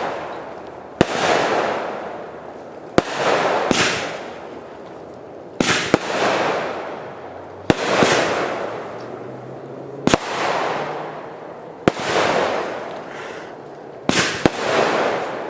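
Consumer aerial fireworks firing in a steady run, a sharp bang about every two seconds, each followed by about a second of fading crackling hiss from the burst; twice two bangs come close together.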